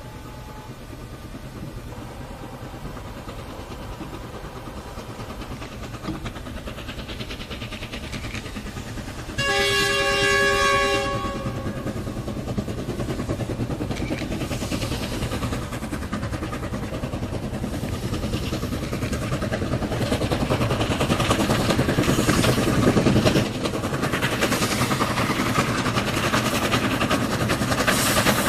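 Two Chinese steam locomotives double-heading a freight train, working hard and growing steadily louder as they approach. About ten seconds in, a locomotive whistle sounds for about two seconds.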